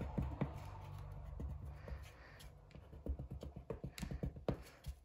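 Pencil tip tapping and scratching on paper in quick, irregular short strokes, several ticks a second, as small dots and star shapes are drawn.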